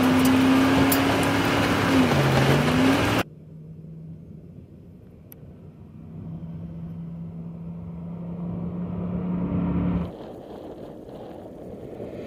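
2011 Ford F-150 SVT Raptor's V8 engine running hard close-up, with rushing wind; its pitch dips and rises again about two seconds in. After a sudden cut about three seconds in, the truck is heard from a distance, its engine note steady and growing louder, before another cut to a quieter stretch near the end.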